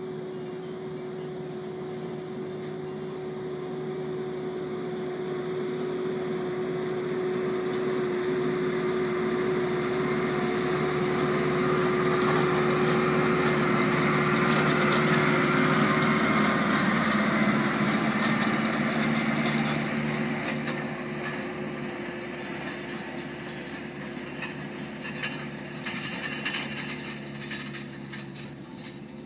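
Schiltrac 92F mountain transporter with a Lüönd Swissprofi loader wagon driving past. Its diesel engine runs with a steady whining tone, growing louder as it approaches and passes about halfway through, then fading as it moves away. Rattles and sharp knocks come in toward the end.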